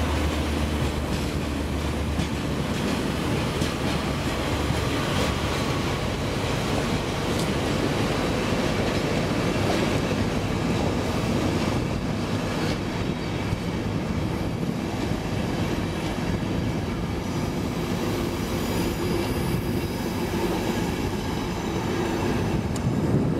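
An InterCity 225 train's Mark 4 coaches rolling steadily past as the Class 91-hauled train pulls out, with wheels clacking over the rail joints.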